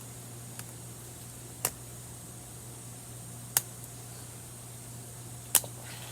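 A plastic Rubik's cube being handled and turned while it is loosened, giving sharp plastic clicks about two seconds apart: a faint one, then three loud ones.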